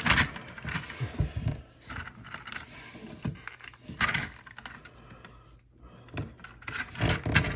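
Scattered light clicks and taps of hard plastic toy figures being handled.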